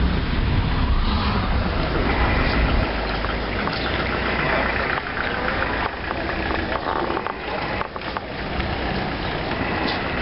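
Low rumble of engine and road noise from inside a moving car, which drops away about three seconds in. After that there is a quieter outdoor street background with a few short clicks.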